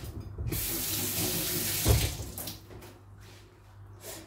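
Tap running into a sink for about two seconds, starting sharply about half a second in, with one dull thump near the end of the flow.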